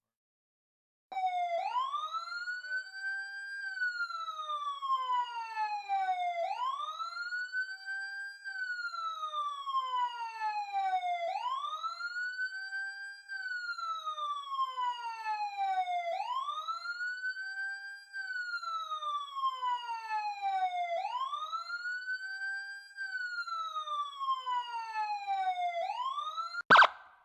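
Ambulance siren in wail mode: the pitch sweeps up quickly, then glides down slowly, repeating about every five seconds at a steady level, starting about a second in. It is cut off near the end by a sharp click.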